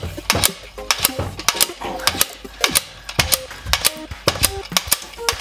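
Quick, irregular metallic clicking and tapping, about three or four a second, from tools working a brass bush out of a car's radius arm.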